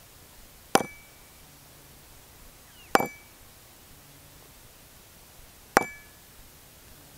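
Ball-peen hammer striking a rivet head held in a divot in a metal block, three separate blows a couple of seconds apart, each with a short metallic ring. The blows pre-curl the rivet head.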